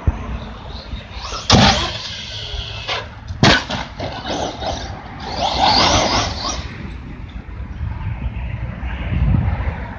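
Battery-electric Team Associated RC8 1/8-scale truggy on a 4S LiPo, driving across grass. Two sharp knocks come about a second and a half and three and a half seconds in, and a louder rushing stretch comes around six seconds in.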